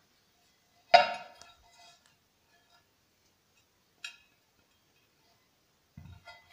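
Metal turntable platter, which the owner takes for aluminium, knocked once about a second in with a sharp clink that rings briefly. A lighter click follows about three seconds later.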